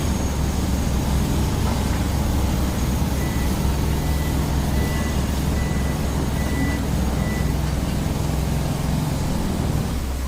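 Bulldozer's diesel engine running steadily, a deep even drone, with a faint high beep coming and going midway.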